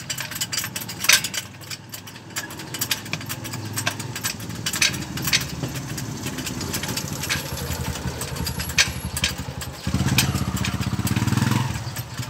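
A vehicle engine idling steadily, getting louder about ten seconds in, with scattered metallic clicks and clinks of tools.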